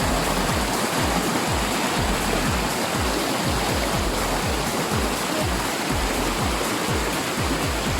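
Steady, loud rush of a fast-flowing river current over rocks, with irregular low rumbling throughout.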